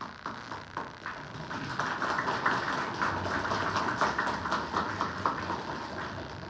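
Audience applause: a few scattered claps at first, building into dense clapping and then thinning out near the end.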